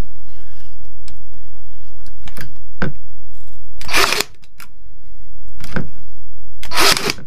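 Ferrex CCT18GW cordless nail gun firing twice, about three seconds apart, each shot a loud sharp crack, with lighter clicks and knocks between. It is driving 50mm nails through oak into softwood and struggles with the hardwood.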